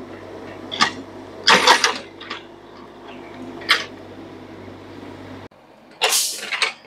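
Mini excavator's diesel engine running steadily as it digs, with three short, sharp bursts of noise over the top. The engine sound cuts off abruptly about five and a half seconds in, followed by a quieter stretch and one more short burst.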